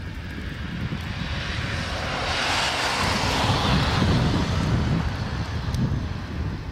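A vehicle passing by: a wide rushing noise swells about two seconds in, peaks midway and fades away again, over a steady low rumble of wind on the microphone.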